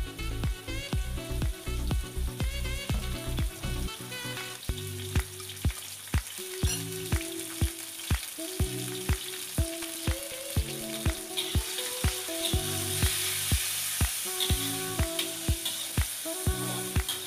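Pork frying in a wok, a steady sizzle that grows louder about eleven seconds in, with a spatula stirring near the end. Background music with a steady beat plays throughout.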